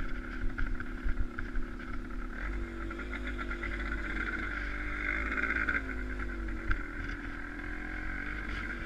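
A vehicle engine running steadily, its pitch shifting slightly in the middle.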